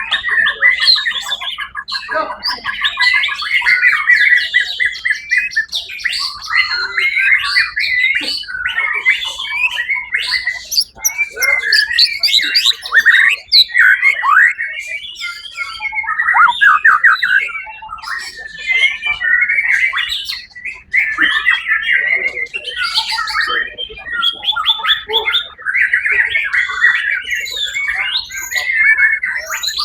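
White-rumped shama singing loudly and almost without pause: a long run of rapid, varied whistles, chirps and rattling phrases that shift quickly in pitch, broken only by brief gaps.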